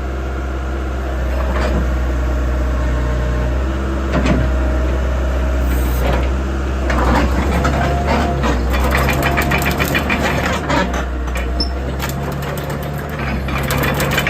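Doosan DX75 excavator's diesel engine running with a steady low hum. From about halfway in, a whine shifting slightly in pitch and a run of clicks and clanks join it as the machine works.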